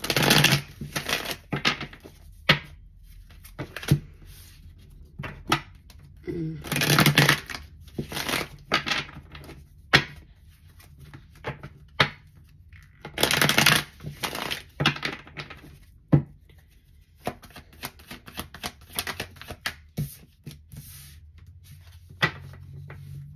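A tarot deck being riffle-shuffled by hand: three long riffles several seconds apart, with sharp single taps of the cards between them and lighter card rustling near the end.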